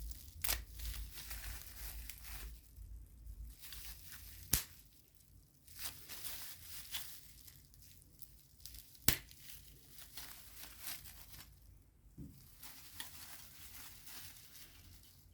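Keyboard packaging being handled and unpacked: irregular rustling and crinkling, with a few sharp clicks, the loudest about nine seconds in.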